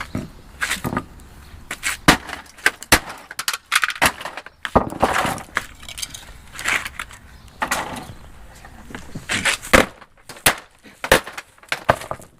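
A sledgehammer smashing the plastic housing of a vacuum cleaner to get at its motor: repeated, irregularly spaced hard blows with cracking and breaking plastic.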